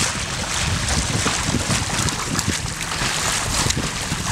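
Wind buffeting the microphone in a steady low rumble with irregular gusts, over water rushing and splashing along the hulls and outrigger float of a sailing catamaran under way.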